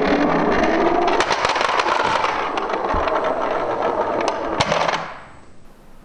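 Small toy car rolling down a hard slope, its wheels rattling and clicking. It fades out about five seconds in.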